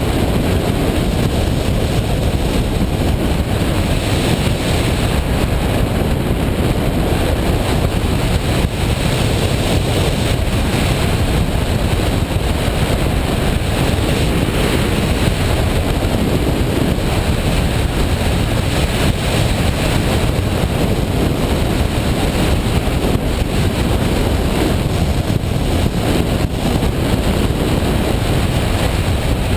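Washing machine running with a steady, loud rumbling noise that holds even throughout.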